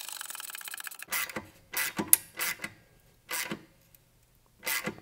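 Ratchet wrench clicking as it tightens the bolt of an exhaust link-pipe clamp: a fast run of ticks in the first second, then several separate clicks spaced out.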